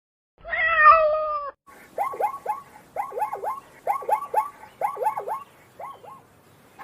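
A cat meows once. It then gives a run of short, quickly falling calls in clusters of two or three, about one cluster a second.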